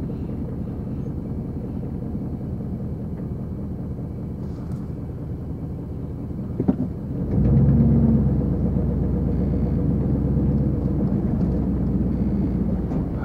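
Vehicle engine running at low speed, with a steady low rumble. About seven seconds in it grows louder and fuller, as when the vehicle pulls forward under power, just after a short click.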